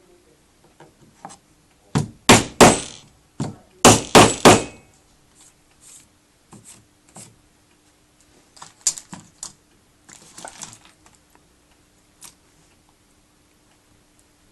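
Sharp knocks on the vanity cabinet's parts as it is put together: two quick groups of about three loud knocks, followed later by lighter clicks and handling rattles.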